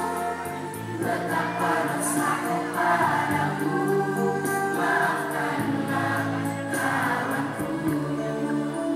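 A choir singing long held notes over accompanying music with a light, steady ticking beat.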